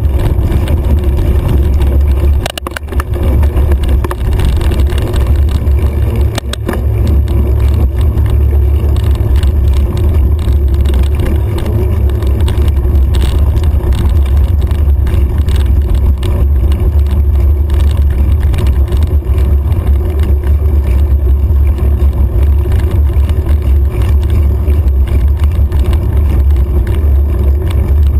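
Wind buffeting the microphone of a handlebar-mounted camera on a mountain bike riding down a dirt road, a steady loud low rumble with tyre noise and a few knocks from the bike, easing briefly about two and a half seconds in.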